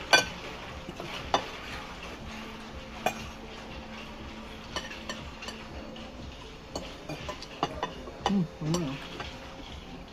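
Metal fork and spoon clinking and scraping on ceramic plates as people eat, in a dozen or so separate sharp clinks, the loudest just at the start. A low steady hum sets in about two seconds in, and there are a couple of short vocal sounds about eight seconds in.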